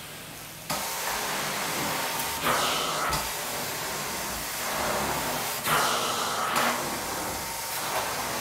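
Carpet steam-cleaning extraction wand drawing water out of the carpet: a steady hiss of suction and spray. It swells louder twice, about two and a half and six seconds in.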